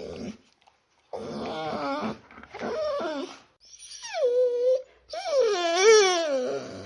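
A small dog whining and whimpering in four cries: two short ones, then two longer whines that fall in pitch, the last one wavering.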